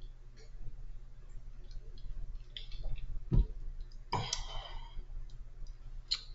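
Scattered small clicks over a steady low hum, with a single low thump a little over three seconds in and a brief rustle just after four seconds.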